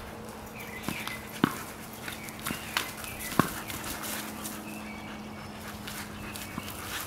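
Rottweiler playing with a plastic Jolly Ball, with several sharp knocks as it noses and bites the ball, over a steady low hum that stops near the end.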